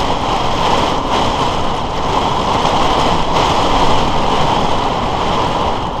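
A severe windstorm buffeting a class A motorhome, heard from inside as a loud, steady rushing noise.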